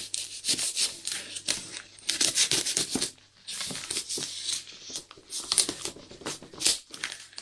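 Knife blade slitting packing tape and wrapping on a parcel: a series of short scraping, tearing strokes with crinkling of the wrapping, easing off briefly about three seconds in.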